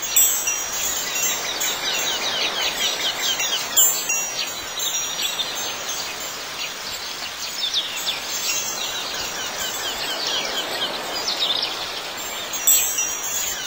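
Garden ambience of birds chirping and singing, with wind chimes ringing out every few seconds.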